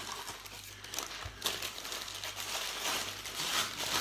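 Paper wrapping crinkling and rustling in irregular bursts as small bowls are unwrapped from it by hand, with a soft knock about a second in.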